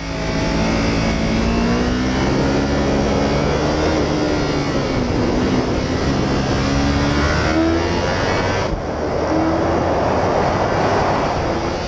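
Sport motorcycle engine running hard on a racetrack, heard from a bike-mounted camera with heavy wind rush over the engine. The engine note rises and falls throughout as the rider works through the corners.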